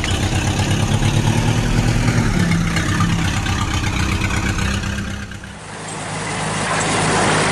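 Tractor engine running with a fast, even throb, its pitch stepping up a little about two seconds in. About five and a half seconds in it gives way to a second, noisier engine sound that swells up.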